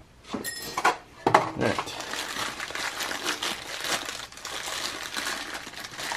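Thin plastic bag crinkling and rustling steadily in gloved hands as a new wheel hub bearing is unwrapped from it.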